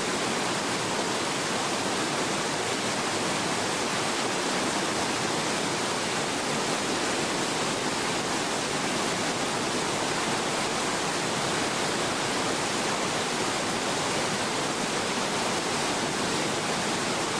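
Whitewater mountain stream rushing over boulders, a steady, unbroken noise.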